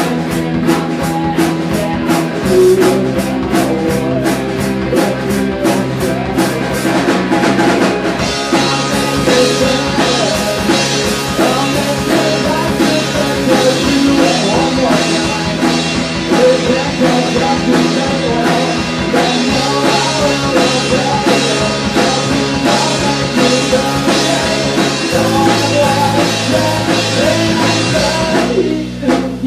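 Live rock band playing: drum kit with cymbals, electric guitar through an amp and electric bass, with a lead singer at the microphone.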